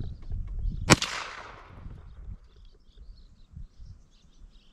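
A single .357 Magnum shot from a Rossi R92 lever-action carbine with a 16-inch barrel, about a second in, its report echoing away over the next second. Faint bird chirps follow.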